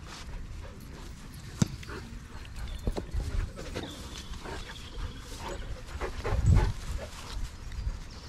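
Dogs playing close together on grass: dog sounds with scattered rustles and knocks, a sharp click about a second and a half in, and a heavy thump about six and a half seconds in.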